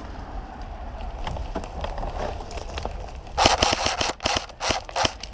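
Airsoft gun firing a quick string of shots, several a second, starting a little past halfway, after a few seconds of quiet rustling movement.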